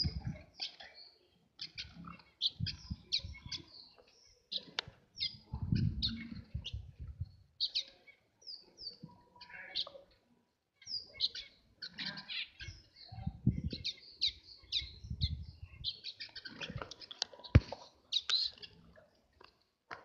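Small caged finches, waxbills among them, chirping and twittering: many short, high calls in quick succession, broken by bursts of low rumble.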